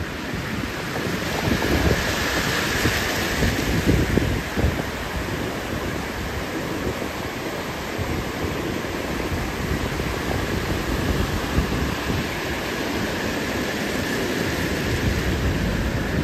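Ocean surf breaking and washing over the shore in a steady rush, with wind buffeting the microphone in gusts.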